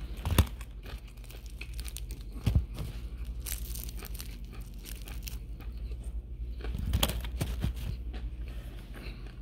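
Close-up crunching and chewing of crispy fried chicken wing, with crackling clicks and tearing of meat from the bone, and a few soft knocks about half a second, two and a half and seven seconds in.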